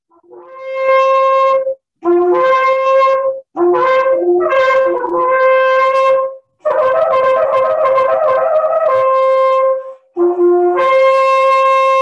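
Shofar blown in a series of loud blasts, each starting on a lower note and jumping up to a held higher one. A run of short, broken notes comes in the middle, and long held blasts come in the second half.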